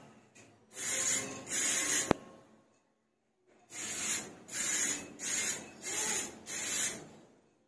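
Aerosol spray can of clear coat hissing in seven short bursts over a motorcycle helmet: two, then a sharp click just after two seconds in, a brief pause, and five more in quick succession.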